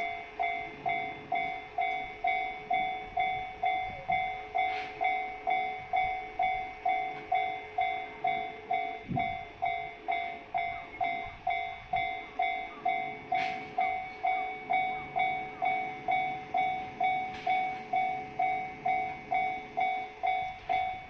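Japanese railway level-crossing alarm ringing its 'kan-kan' bell tone, struck evenly about twice a second without a break: the warning that a train is approaching and the crossing is closed.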